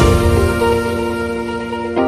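Background music: soft held chords with no beat, the treble fading away.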